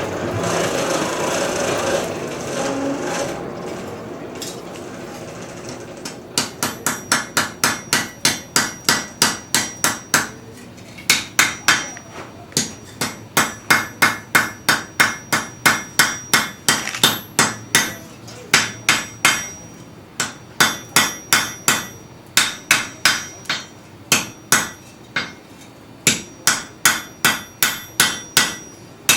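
Blacksmith's hammer striking metal on an anvil in runs of about three ringing blows a second, with short pauses between runs. The hammering begins about six seconds in, after a steady rushing noise fades.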